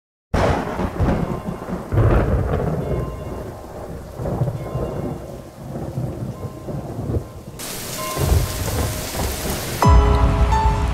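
Thunderstorm: steady rain with rolls of thunder, one starting about two seconds in and another near eight seconds. The rain turns to a harder, brighter hiss for a couple of seconds before soft music notes come in about a second before the end.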